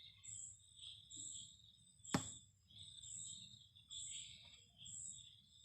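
Faint high-pitched insect chirping that repeats about once a second, with a single sharp click about two seconds in.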